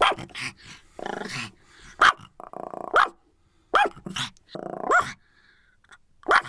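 Pomeranian barking and growling: about six sharp, high barks broken up by short, rough growls lasting about half a second each.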